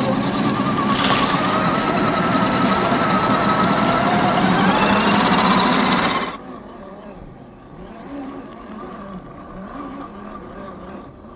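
Electric drivetrain whine of a 1/10 scale RC crawler's brushed 540 27T motor and gears, its pitch rising and falling with the throttle. About six seconds in it cuts to a much quieter level.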